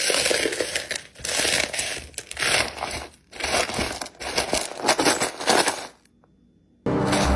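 Silicone ice-cube mold bucket being squeezed and twisted, the ice cubes cracking loose from the mold in about six bursts of crackling and crunching as they drop into the bottom. After a short pause, soft ambient music starts near the end.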